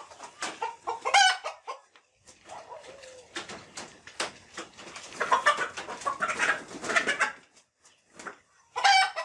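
Chickens clucking and squawking in a series of short, harsh calls, densest midway, with one loud squawk near the end.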